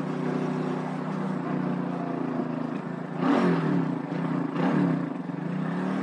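Vitacci XMT 250 motorcycle engine running at low road speed as the bike slows. Its note dips and rises twice in the second half.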